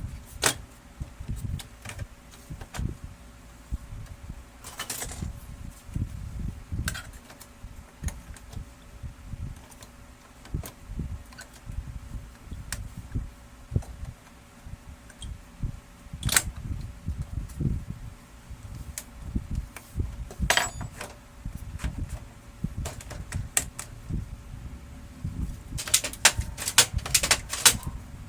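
Scattered clicks, taps and knocks of small plastic and metal parts being handled, with a quick run of sharp clicks near the end.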